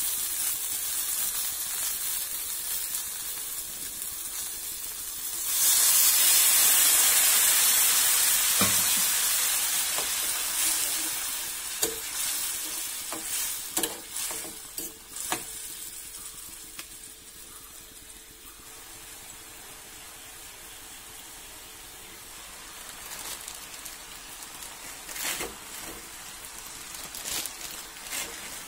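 Sliced onions sizzling in a hot frying pan. About five seconds in, a loud hiss as water is poured into the hot pan. It then settles to a quieter simmer, with a ladle knocking and scraping against the pan and a few more knocks near the end.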